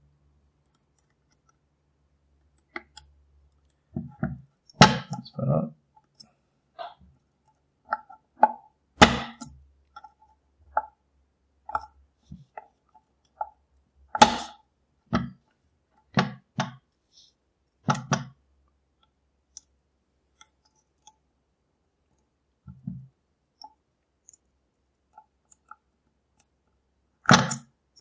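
Lock picks and a tension tool working in the cylinder of a large GMG multi-point lock: scattered clicks, with a handful of sharper knocks at uneven intervals and quiet gaps between.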